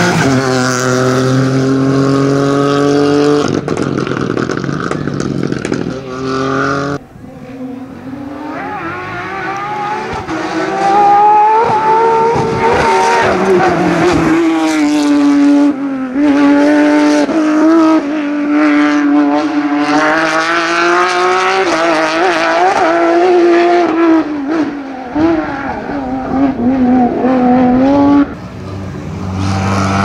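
Rally car engines at high revs passing at speed on a closed stage, the engine note climbing and dropping again and again with gear shifts and lifts off the throttle. The sound cuts abruptly near 7 seconds, and then another car is heard approaching, growing louder and working hard through the gears.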